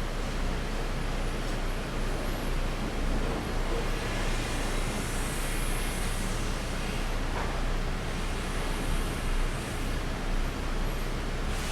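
Sawmill machinery running steadily: a constant, even din with a low hum under it.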